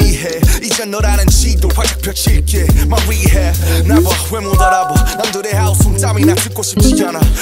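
Hip hop music with rapped vocals over a steady beat and long, heavy bass notes.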